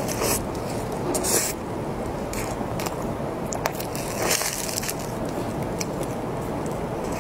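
Close-up eating of a cream puff with a soft green cream filling: crackly bites into the crust and wet, squishy chewing, with short crisp crunches coming about once a second.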